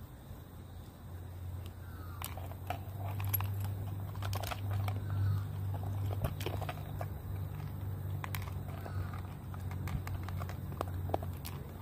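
Small dog eating from a plastic bowl: irregular crunching and sharp clicks of food and teeth against the bowl, over a steady low hum.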